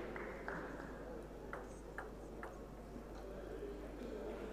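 Celluloid table tennis ball bounced lightly by hand as a player readies to serve: a handful of small ticks, the last three evenly spaced about half a second apart, over the low hum of the hall.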